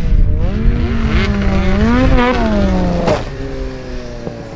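Snowmobile engine revving hard, its pitch rising to a peak about two seconds in and then falling away. It settles into a quieter, steadier run after a sharp knock about three seconds in.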